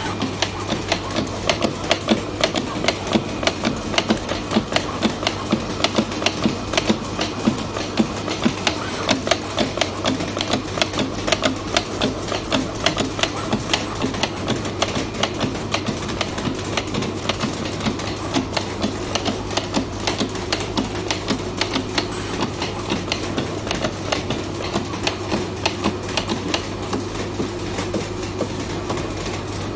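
Sample-cutting plotter at work: a rapid, uneven clatter of clicks, several a second, over a steady low hum.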